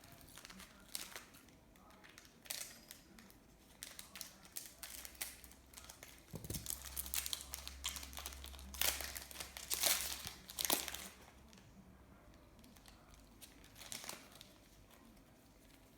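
Plastic wrapper of an AFL trading-card packet crinkling and tearing as it is opened by hand: a run of short crackles that gets busier in the middle and thins out near the end.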